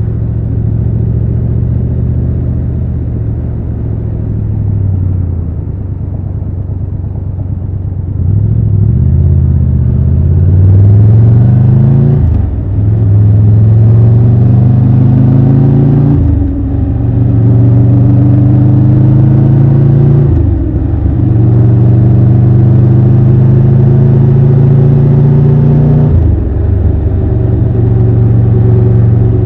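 Triumph Tiger 1200 Rally Pro's inline three-cylinder engine pulling the bike away from a steady run. It rises in pitch, with four brief breaks for gear changes, and between the later shifts it runs steadily on a gentle throttle.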